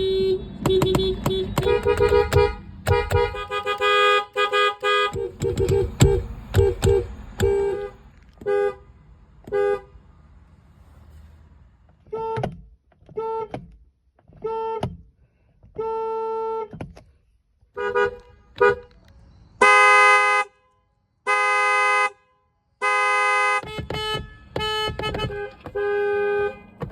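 Sedan car horns honking, the first a Mazda 3's: a quick run of toots, then scattered short beeps, then three long blasts about twenty seconds in, and more honks near the end.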